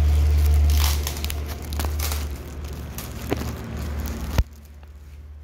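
Clear plastic wrapping crinkling and rustling as it is handled and pulled, over a loud low rumble. A sharp thump comes about four and a half seconds in, after which the rumble drops much quieter.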